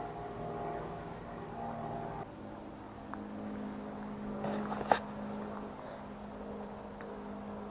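A distant engine droning steadily, its hum thinning to one steady low tone about two seconds in. A single sharp click comes just before five seconds.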